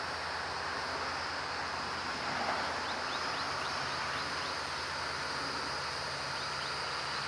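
Diesel locomotive engines of an EMD GP59-led freight train running at a distance, a steady low drone over outdoor background noise. Faint high chirps come through in the middle.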